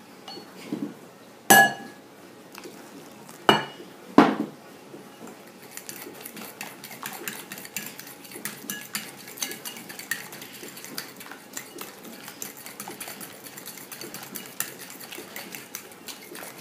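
A metal fork beating a thin batter in a ceramic bowl, hot milk being stirred into egg, sugar and flour for crème pâtissière. There are three sharp clinks in the first four seconds or so, then quick, light, continuous tapping and scraping.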